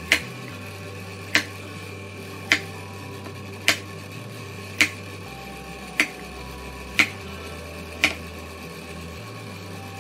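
Kitchen knife chopping through baby corn cobs onto a wooden cutting board: eight sharp chops, about one a second, over a low steady hum.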